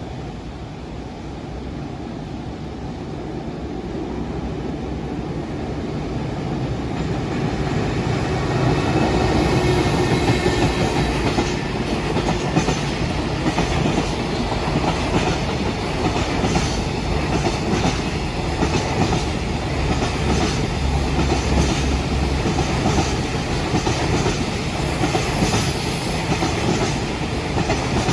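Container freight train approaching and rolling past, growing louder over the first several seconds, then a steady rumble with the wheels clattering rhythmically over the rail joints.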